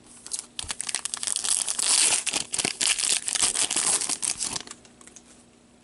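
Crinkling and tearing of a trading card pack's wrapper as it is opened by hand. The crackle stops about a second before the end.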